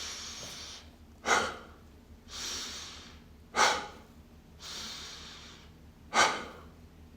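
A person breathing deliberately and deeply: three slow inhales, each followed by a short, forceful exhale.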